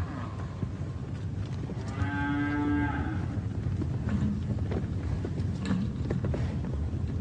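Cattle lowing: one drawn-out moo lasting about a second, about two seconds in, over a steady low rumble with a few faint clicks later.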